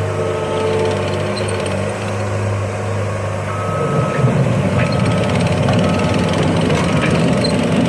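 Caterpillar 247B compact track loader's diesel engine running steadily. About halfway through it takes on load and its reverse alarm starts beeping about once a second as the machine backs up.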